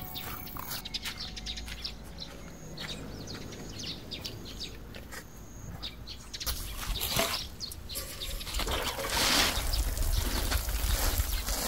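Birds chirping, then in the last few seconds a steady hiss of water sprinkling from a watering can's rose onto a tray of onion seedlings.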